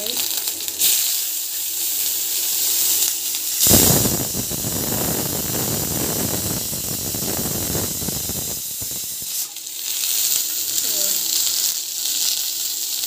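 Garlic cloves sizzling in hot oil in a metal pan, a steady hiss. About four seconds in, chopped onions go into the pan and a much louder, fuller noise runs for about five seconds before it settles back to the steady sizzle.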